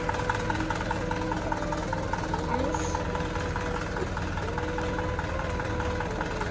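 Background music with a gliding melody, over a diesel truck engine idling steadily with a fast, even pulse.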